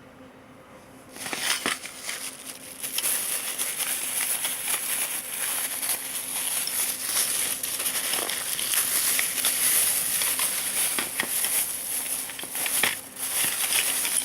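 Crinkly packaging being handled and unwrapped to get at the small parts of a gashapon figure: continuous crackling and rustling with many small clicks, starting about a second in.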